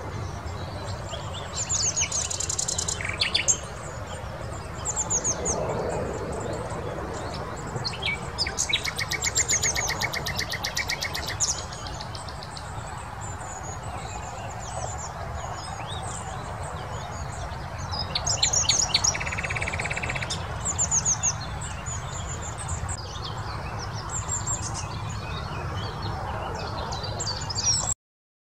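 Common nightingale singing: varied phrases with short pauses between them, including long fast runs of repeated notes about nine seconds in and again near twenty seconds, over steady low background noise. The sound cuts off abruptly near the end.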